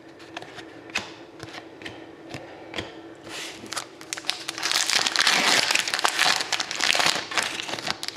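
Trading cards flicked one at a time, a light click each, then a card pack's wrapper crinkled loudly as it is opened, from about three and a half seconds in to near the end.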